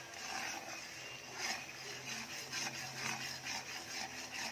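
Butter and garlic sizzling in a metal wok, with a metal spatula stirring and scraping the pan in irregular strokes; the garlic is browning.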